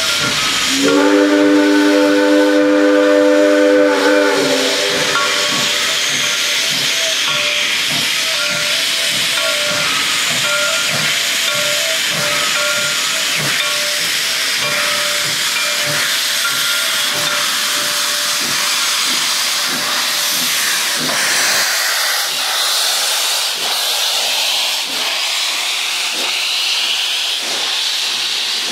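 Reading and Northern No. 425, a 4-6-2 steam locomotive, sounds one long chime-whistle blast about a second in, lasting about three and a half seconds. It then pulls away with a run of exhaust chuffs under a steady hiss of steam venting from its open cylinder cocks.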